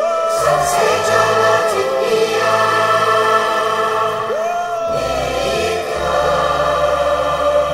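Children's choir singing long held notes over orchestral accompaniment in a live performance; deep bass notes come in about five seconds in.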